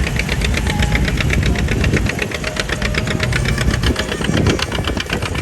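Antique tractor engine running with a rapid, even exhaust beat.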